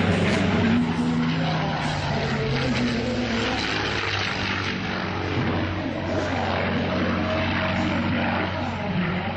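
P-51 Mustang's Merlin V-12 engine droning as the fighter manoeuvres overhead, its pitch drifting slowly up and down as it banks and passes.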